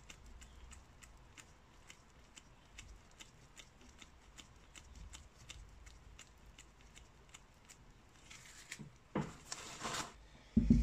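Quiet handling of a motorcycle brake caliper with faint, evenly spaced ticking, a few ticks a second. Near the end comes a rustle of paper towel and a sharp thump as the caliper is picked up and moved on the workbench.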